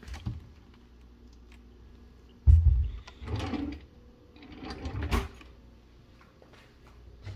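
Kitchen utensil drawer being opened and shut: a low thump about two and a half seconds in with a sliding rattle after it, then a second slide ending in a bump about five seconds in.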